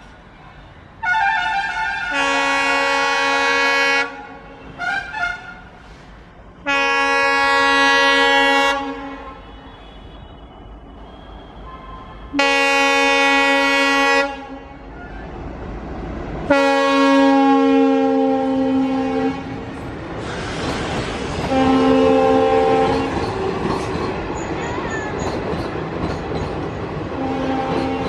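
Indian Railways diesel locomotive sounding its multi-tone horn in a series of long blasts several seconds apart, with a couple of short toots between the first two. From about twenty seconds in, the rolling noise and wheel clatter of its passenger coaches passing close by rise beneath the last blasts.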